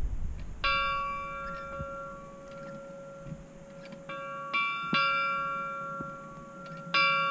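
Small chapel bell in its belfry struck four times, each stroke ringing on and fading slowly. The first comes about half a second in, two follow close together past the middle, and the last comes near the end.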